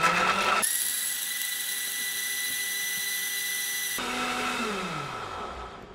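Sage 3X Bluicer Pro blender motor running its automatic Green Smoothie program. It speeds up, holds a steady high-pitched whine for about three seconds, then slows with a falling pitch near the end. The changing speed is the program raising the power in cycles so the ingredients drop back down onto the blades.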